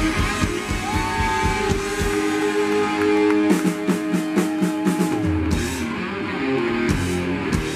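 Live rock band playing: electric guitar with bent notes over bass and drums. About halfway through comes a quick run of even hits, about four a second, then a held low note.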